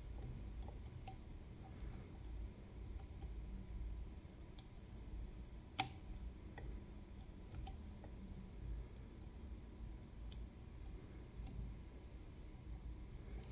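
Sparse light metallic clicks from lock-picking tools working the pins of a CISA AP3 lock, about six in all, the loudest about six seconds in, over a steady low background hum.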